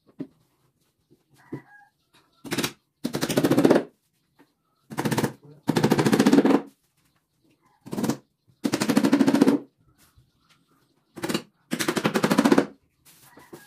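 Power tool with a fast rattling hammer, run in paired bursts: a short blip of the trigger, then a longer run of about a second. The pair repeats four times, about every three seconds.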